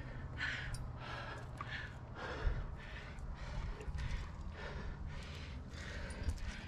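Rock climber breathing hard and rhythmically with effort, short breaths in and out following one another about every half second to second, over a steady low rumble.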